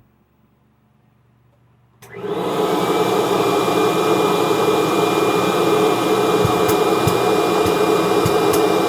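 Kirby Generation 3 upright vacuum with the carpet fluffer attachment switched on about two seconds in; the motor comes up to speed almost at once and runs steadily with a high whine, with a few faint ticks near the end.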